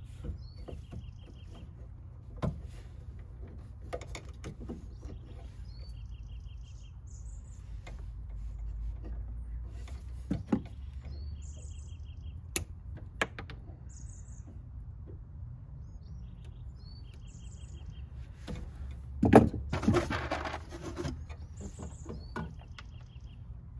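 Small birds chirping in short repeated trills over a steady low rumble, with scattered sharp clicks and knocks of hand work on electrical wiring. About nineteen seconds in comes the loudest sound, a knock followed by a couple of seconds of clattering rustle.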